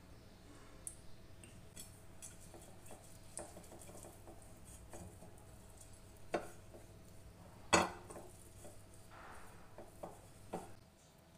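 Silicone pastry brush spreading grease over a glass baking dish, with scattered light taps and knocks on the glass; the loudest knocks come about six and a half and eight seconds in. A faint steady hum runs underneath.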